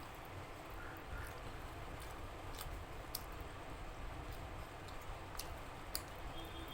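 Eating sounds: four sharp, faint clicks of mouth and lips while chewing a meal of rice and curry, over a low steady background hiss.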